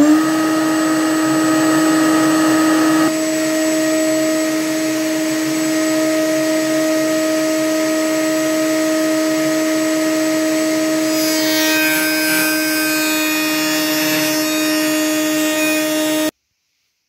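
Router in a router table running at full speed with a steady high whine. From about 11 to 15 seconds a rougher sound is added as the profile bit cuts a strip of oak fed along the fence. The sound cuts off suddenly near the end.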